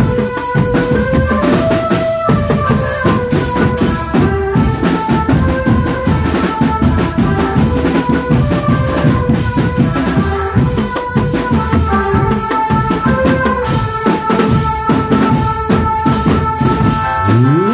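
Drum band playing: marching drums keep a busy, steady beat under a melody of held notes.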